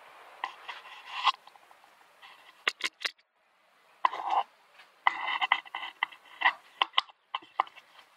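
Handling noise from a camera on a stick being moved inside a stripped aircraft fuselage: irregular sharp clicks and knocks with short rustling scrapes. There is a brief lull just after the middle, then a busier run of clicks and scrapes.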